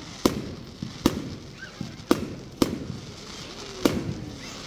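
Fireworks going off: five sharp bangs at uneven intervals, each trailing off in a rumbling echo.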